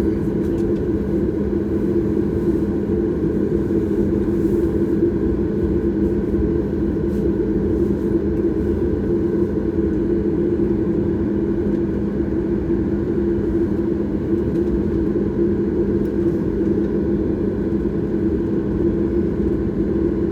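Cabin noise inside a Boeing 737 MAX 8 under way: the CFM LEAP-1B engines' steady drone over a low rumble, with an even hum that holds one pitch throughout.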